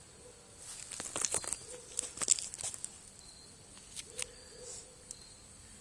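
Small paper fire crackling, with charred, curled sheets crinkling as they burn. The crackles come in a busy cluster about one to three seconds in, then two more snaps near the four-second mark.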